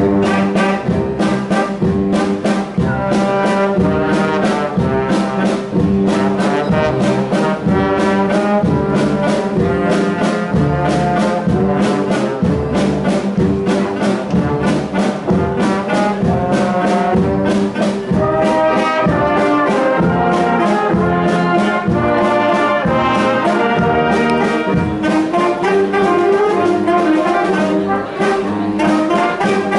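Wind band playing live: brass including trombone and trumpet, with saxophones and clarinets, over a steady percussive beat.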